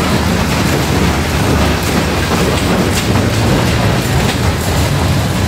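Kiddie caterpillar roller coaster car running steadily along its steel track, a continuous rumble with a few faint ticks.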